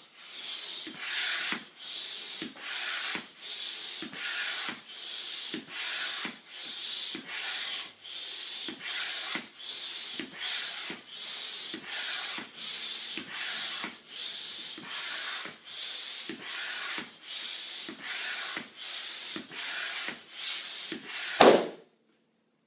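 Upright hand floor pump inflating a large black balloon: a steady rhythm of pump strokes, each a rush of air, about one and a half a second. Near the end the balloon bursts with a single loud pop.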